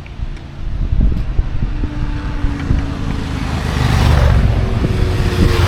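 Wind buffeting the microphone: a heavy low rumble with a rushing hiss, growing stronger about halfway through.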